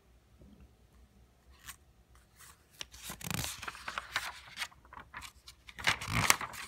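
Paper pages of a book being turned and handled: rustling and sliding paper with small clicks, loudest about three seconds in and again near the end.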